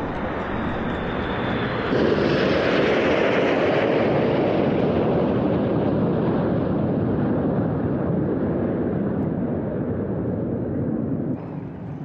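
Red Arrows' BAE Hawk jets flying low overhead in a loud, steady jet roar. It jumps up sharply about two seconds in and drops suddenly near the end.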